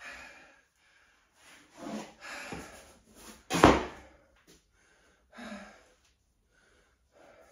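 A few knocks and thuds from workout equipment being handled in a small room. The loudest is a single sharp thud about three and a half seconds in.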